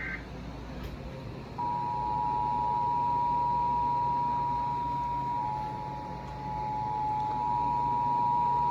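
Emergency Alert System two-tone attention signal: two steady tones near 853 and 960 Hz sounding together, starting about a second and a half in and holding to the end, announcing a tornado warning. At the very start the last fraction of a second of the screeching digital header burst is heard.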